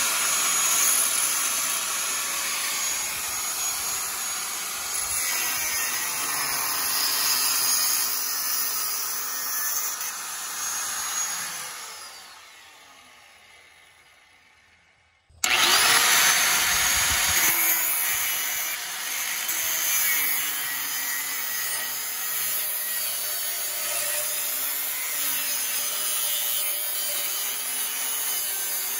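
Angle grinder with a cutting disc cutting through a rusty steel exhaust pipe, its motor pitch wavering as the load changes. About twelve seconds in the sound fades away. A few seconds later the grinder starts again with a quick rise in pitch and goes back to cutting.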